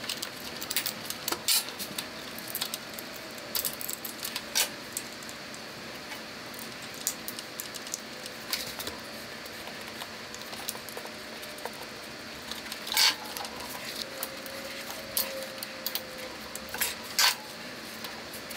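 Hand work on a small single-cylinder engine's carburetor and intake: scattered light clicks and clinks of metal and rubber parts being handled and fitted, with a few sharper clicks about two-thirds of the way through.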